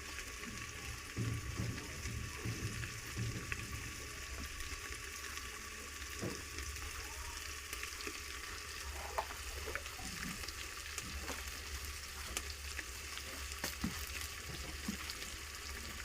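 Onions frying in a pan: a steady sizzling hiss with scattered small pops and ticks. A few soft knocks come between one and four seconds in.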